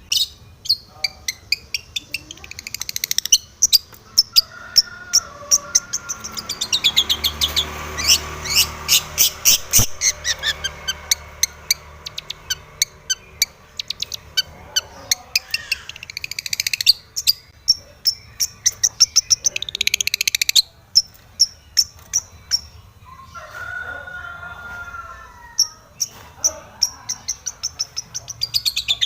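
Long-tailed shrike singing hard: a fast string of sharp, high chirps and harsh chattering notes, broken by a few short pauses.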